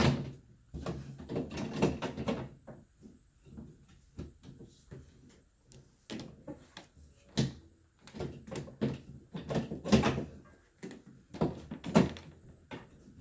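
Refrigerator door being handled and fitted onto its hinge pins: a run of irregular knocks, bumps and clunks, with the loudest clunks about two-thirds of the way through and again near the end.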